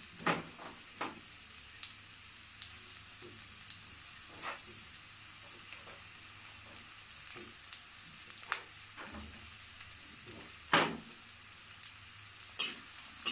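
Sliced onions sizzling in hot oil in a karahi: a steady hiss with scattered short knocks, the loudest two near the end. The onions have just gone in and are starting to fry brown.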